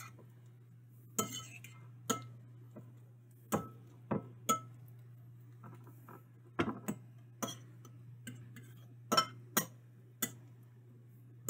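Metal spoon clinking against a ceramic bowl while mixing a thick mash of plantain and spices: about a dozen irregular clinks and scrapes over a steady low hum.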